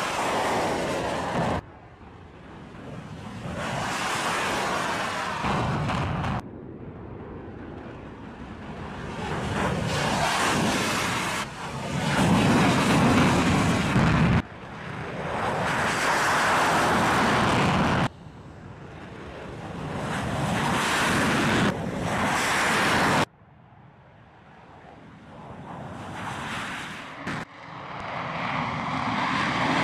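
Military fighter jet engines on takeoff, heard in a string of edited clips: about seven stretches of jet engine noise, each swelling louder and then cut off abruptly as the next begins.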